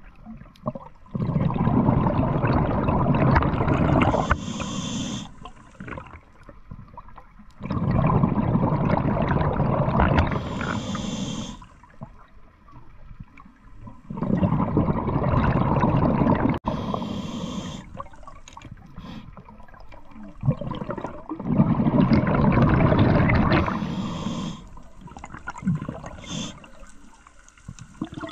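A scuba diver breathing through a regulator underwater: four long bursts of exhaled bubbles, about every six to seven seconds, with the quieter hiss of the inhales between them.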